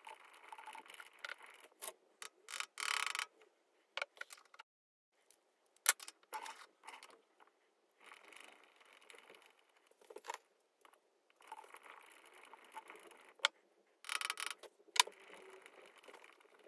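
Small steel parts of a mini lathe's multifix quick-change tool post being handled: scattered sharp metal clicks and taps, with a few short scrapes of metal on metal and quiet gaps between them.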